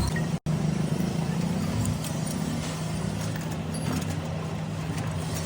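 A steady low mechanical hum, with a constant low tone under a broad noise, that cuts out for an instant about half a second in.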